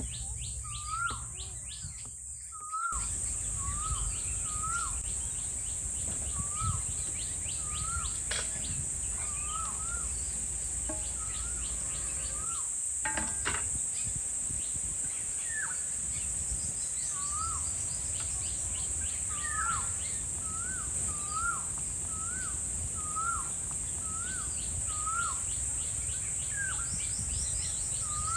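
Outdoor birdsong and insects: a bird repeats a short rising-and-falling call about once a second over a steady high insect drone. A few brief clicks come in now and then.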